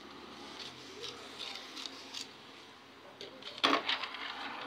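Pattern paper rustling softly as a hand smooths and presses it flat on a table, with one brief, much louder rustle about three and a half seconds in.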